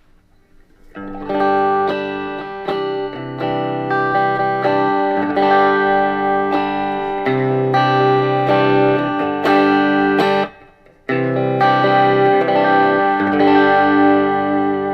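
Electric guitar played through a 1949 Gibson BR-9 tube amplifier (6V6 output tubes, original field-coil speaker), notes and chords ringing out with a short pause about two-thirds through. The amp plays with no crackles or pops, its arcing phase inverter transformer having been replaced.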